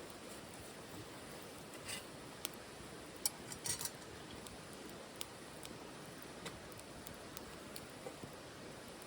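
Wood fire crackling in a small titanium wood stove: a steady low hiss with scattered sharp pops, a quick cluster of louder cracks about three to four seconds in.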